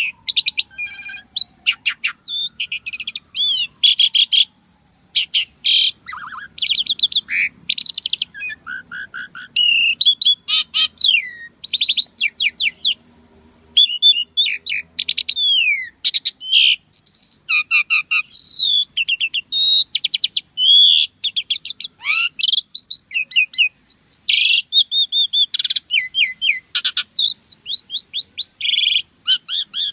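Asian pied starling (jalak suren) in full song: a long, rapid, varied run of whistled notes, chattering phrases and rising and falling glides, with hardly a pause between phrases.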